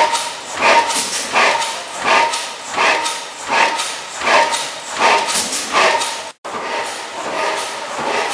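94hp National gas engine running, with a regular beat about one and a half times a second. The sound cuts out briefly about six seconds in and comes back with the beat less distinct.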